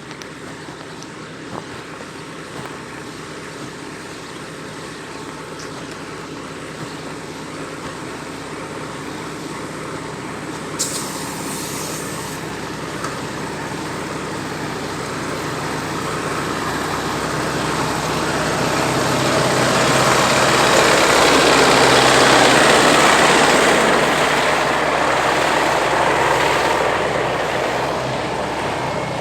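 A motor vehicle engine running steadily, growing louder over several seconds and easing off again near the end, as if coming close. There is a short hiss about a third of the way in.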